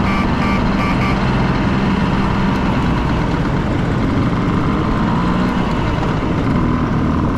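Two-stroke Vespa scooter engines running steadily while riding in a group, with wind rush. A quick run of short high beeps sounds in the first second.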